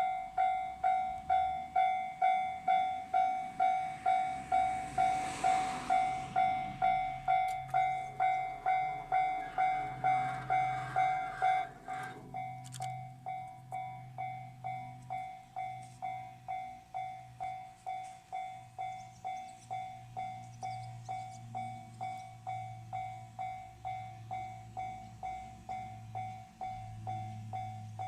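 Japanese railway level-crossing warning bell ringing, an even electronic ding about twice a second. It drops in volume about twelve seconds in, and a low rumble grows beneath it later on.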